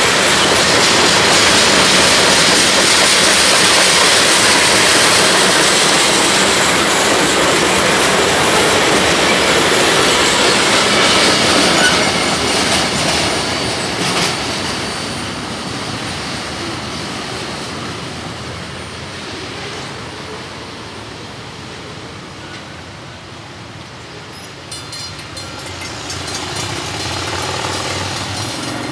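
Freight train cars rolling past, wheels clicking and clacking over the rail joints. The sound fades steadily as the end of the train recedes.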